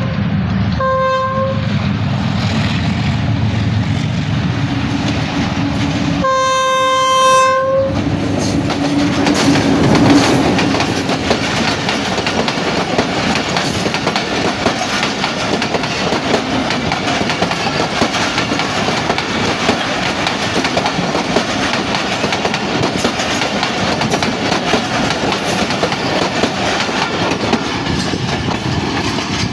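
Pakistan Railways HBU-20 diesel locomotives passing, sounding their horn with a short blast about a second in and a longer blast around six seconds in, their engines running heavily as they go by. From about ten seconds in comes the steady clatter of the passenger coaches' wheels over the rails.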